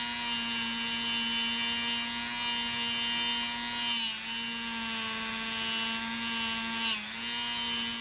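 Dremel rotary tool spinning an abrasive scrubby wheel against the concave section of a pocket knife's screwdriver blade: a steady motor whine that dips briefly in pitch about four seconds in and again near the end.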